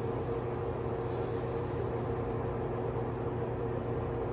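Steady mechanical hum with a constant mid-pitched tone over a low drone, unchanging throughout.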